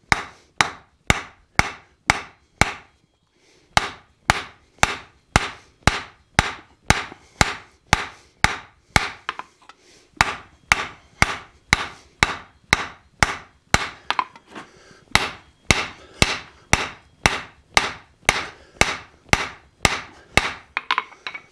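Hand hammer striking a hot railroad spike on a steel anvil while drawing it out: steady blows about three a second, each ringing briefly, with two short pauses, about three seconds in and about halfway through.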